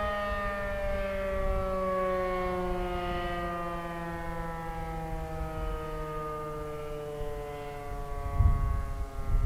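Sentry 40V1T electromechanical outdoor warning siren winding down after a short alert, its single tone sliding slowly lower in pitch and fading. A low rumble comes in near the end.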